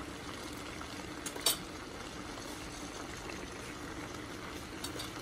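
Pan of raw chicken mince, onion and garlic-ginger paste sizzling steadily on the stove, with one light click about one and a half seconds in.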